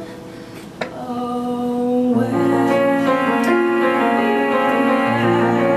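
A woman singing a long held note in a slow ballad, with piano accompaniment that fills out into sustained chords about two seconds in.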